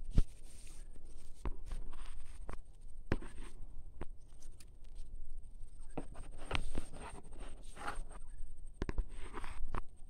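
Irregular crackling and rustling of dry leaves and twigs, with sharp snaps here and there, as someone moves through dry undergrowth.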